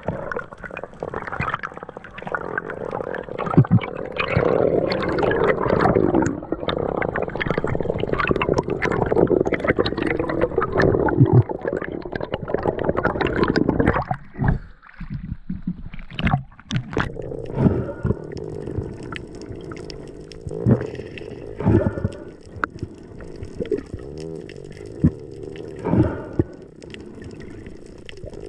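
Water rushing and gurgling over an action camera's waterproof housing as a spearfisher swims underwater. About halfway through it drops away briefly, then goes on as quieter water noise broken by separate sharp splashes and gurgles.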